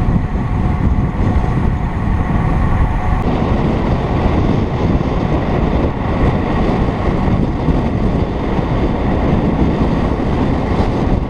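Wind buffeting the microphone of a camera on a moving bicycle: a steady, loud rushing noise.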